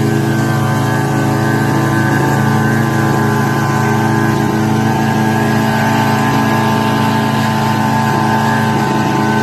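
Tohatsu outboard motor running steadily at an even speed during its warm-up.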